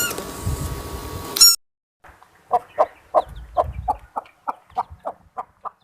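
An animal's short, clucking calls repeated about three times a second and fading toward the end, after two brief high-pitched cries in the first second and a half.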